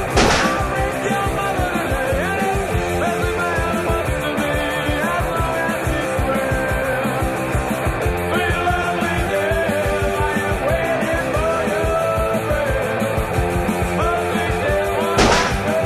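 Punk-style rock music with a steady beat and a melody line, loud throughout, with a sharp crash about half a second before the end.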